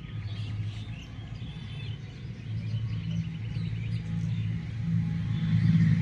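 A low, steady rumble, growing louder toward the end, with faint songbird chirps and a short trill about halfway through.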